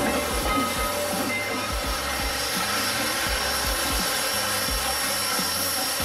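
Train hauled by Southern Railway 4501, a 2-8-2 Mikado steam locomotive, rolling slowly past: a steady rumble of wheels on rail with irregular low thumps, and steam hissing.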